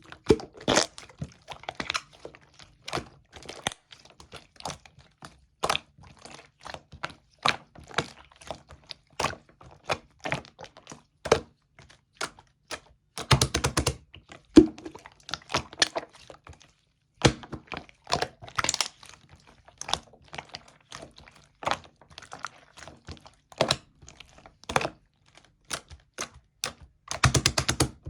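Slime being squeezed, pressed and stretched by hand, giving irregular sharp clicks and pops. Dense rapid runs of clicks come about halfway through and near the end.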